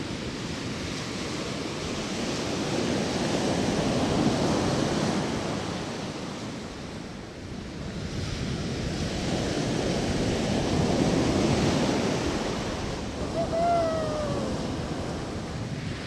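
Atlantic surf breaking and washing up a sand-and-pebble beach, the roar swelling and easing in two long surges. Near the end there is a short, falling cry.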